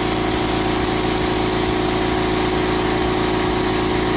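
Deodorizing fogging machine running steadily: a large drum fan blowing while an air-fed nozzle sprays deodorizing liquid into a thick mist, with a constant hum.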